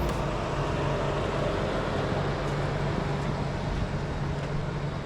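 Motor vehicle engine running steadily, a constant low hum with no change in pace.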